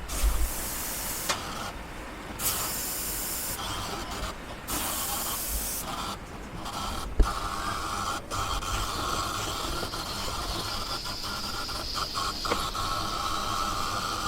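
Lely Astronaut robotic milker at work on a cow: hissing of air that starts and stops in stretches, with scattered sharp clicks and a steady whine that comes in about halfway.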